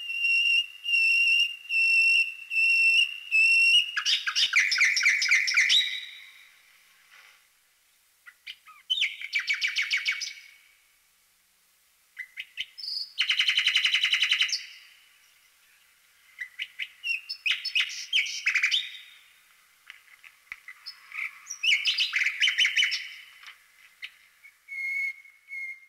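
A bird singing: five clear, even whistled notes at the start, then several phrases of fast trills separated by short pauses.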